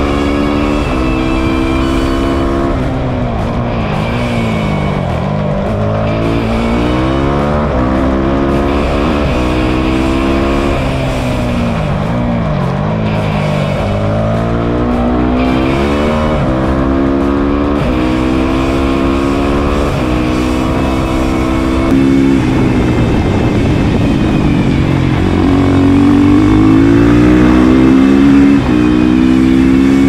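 Suzuki RM-Z450 supermoto's single-cylinder four-stroke engine, fitted with an Akrapovic exhaust, being ridden hard. The revs climb, drop off and pick up again over and over as the bike accelerates, shifts and slows for bends. It gets louder in the last several seconds.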